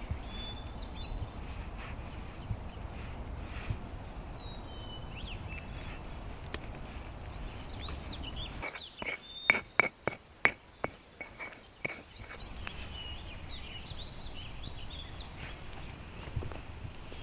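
Woodland ambience with small birds chirping and a low rumble. About nine seconds in, the rumble drops away and a quick run of about eight sharp knocks follows over some three seconds.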